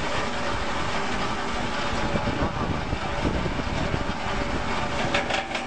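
918-KOB copper wire stripping machine running with a steady mechanical noise while a wire is fed into it, with a quick run of sharp clicks near the end.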